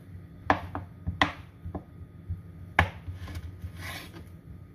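Kitchen knife chopping butter into cubes on a wooden cutting board: a series of irregular sharp knocks as the blade cuts through and strikes the board.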